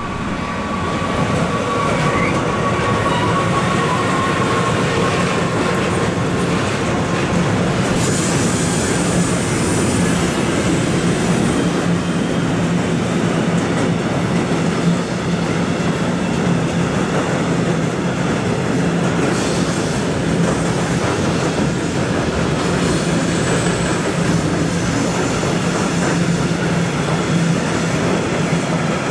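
Electric-hauled freight train of covered wagons and tank wagons rolling past, with a loud steady rumble of wheels on rail. A faint whine falls slightly in pitch during the first few seconds as the locomotive goes by. High-pitched wheel squeals come about eight seconds in and again over twenty seconds in.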